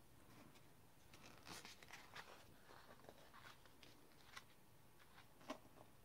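Faint rustle and crinkle of a paper page of a photobook being turned by hand, with a couple of soft taps near the end.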